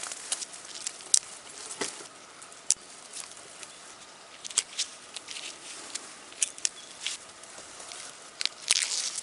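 Cattail leaves rustling and stalks snapping as green flower heads are picked by hand: irregular sharp snaps and crackles, with a longer rustle near the end.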